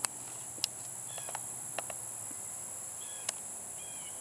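Steady, high-pitched drone of a summer insect chorus, with a few sharp clicks and some faint short chirps over it.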